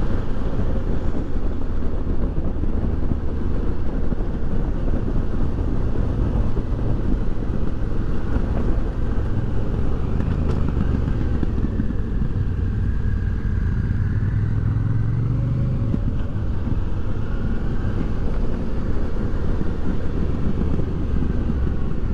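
Motorcycle engine running while riding along the road, a steady drone under a constant rumble, its note rising for a few seconds just past halfway.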